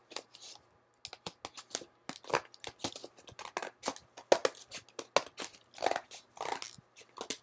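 Scissors cutting through a cardboard toy-package backing, a fast irregular run of snips and crackles that starts about a second in.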